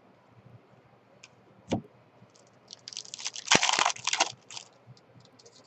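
Trading-card pack wrapper being torn open and crinkled: a single sharp click, then a crackling rustle lasting about two seconds.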